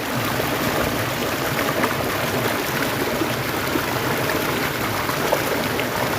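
Flowing stream water running steadily.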